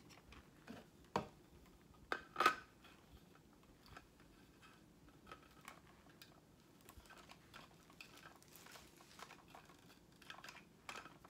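Hard white plastic parts of a stand-mixer attachment clicking and knocking together as they are fitted and handled: a few sharp clacks in the first three seconds, then faint scattered ticks.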